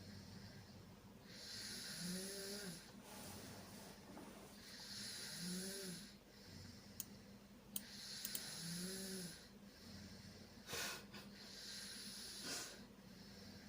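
A sleeping person snoring: three long airy snoring breaths about three seconds apart, each carrying a short low hum partway through, then two shorter, sharper breath sounds near the end.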